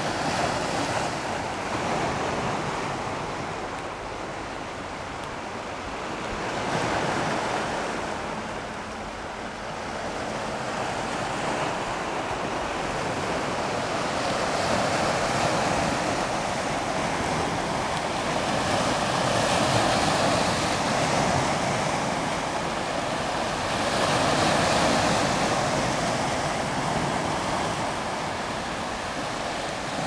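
Small sea waves breaking and washing over a stony shore, the surf swelling and easing every few seconds.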